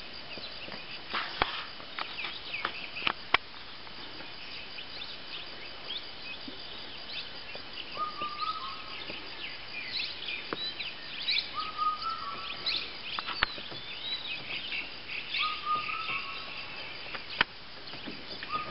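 Birds chirping and calling, with many quick high chirps and a short, flat call repeated four times, about every three to four seconds, from the middle on. A few sharp clicks stand out in the first few seconds.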